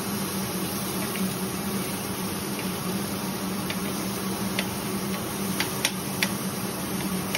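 Knife cutting cooked chicken on a cutting board: a handful of short, sharp, irregular taps, most of them in the second half, over a steady kitchen hiss and hum.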